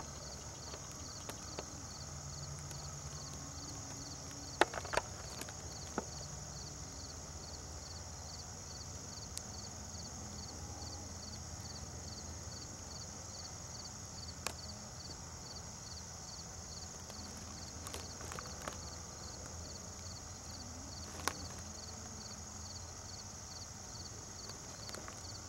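Quiet outdoor ambience: a steady high hiss with a faint ticking about twice a second and a low hum underneath, broken by a few sharp isolated clicks, the loudest about five seconds in and again about twenty-one seconds in.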